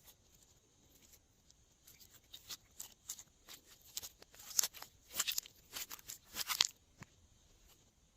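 Glossy slime being squeezed and worked by hand, giving a quick run of sticky, crisp crackling pops that build up to a dense burst about five to six and a half seconds in, then stop abruptly.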